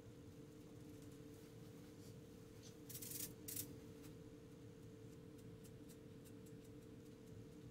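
Oil paint brush strokes on canvas: two short scratchy strokes about three seconds in, then a few faint ticks, over near silence with a steady low hum.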